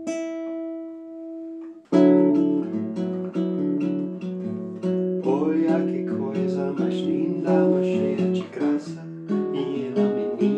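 Classical acoustic guitar: a single note rings for about two seconds, then the player strums rhythmic chords.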